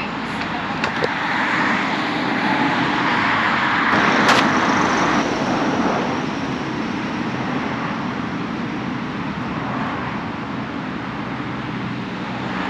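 Road traffic: a steady rush of passing cars, one vehicle growing louder and passing about four seconds in, with a brief click at its peak.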